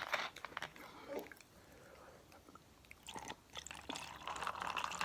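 Close-miked chewing of chicken wings: short wet clicks and smacks, then a denser spell of mouth noise in the last second or so.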